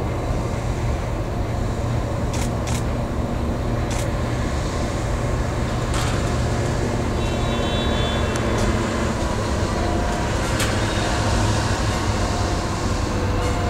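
Diesel engine of a rail shunting car running steadily as it slowly moves an EF65 electric locomotive, with a few sharp metallic clanks and a brief high wheel squeal about halfway through.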